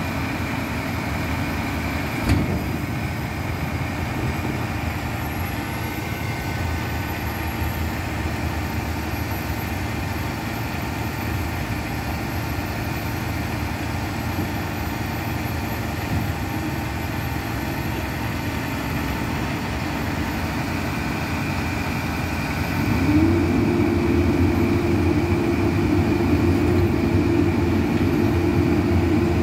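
Front-loader garbage truck's diesel engine running at a steady idle, with a single knock about two seconds in. About 23 seconds in, the engine revs up to a louder, higher steady drone as the truck works its hydraulic forks on a dumpster.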